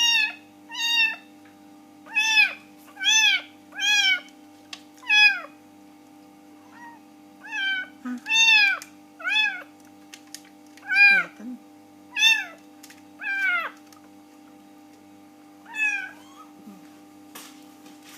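Young kittens mewing over and over: about fifteen short, high-pitched meows, each falling in pitch, in irregular runs, the last one about 16 seconds in.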